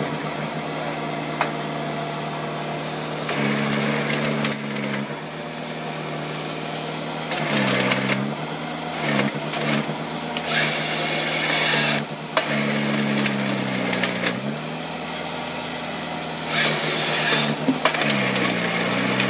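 Terri 34 harvester's engine running under hydraulic load, its pitch sagging and recovering about four times as the harvester head feeds, delimbs and saws a tree trunk. Repeated bursts of sawing and crackling from the head, each lasting a second or two.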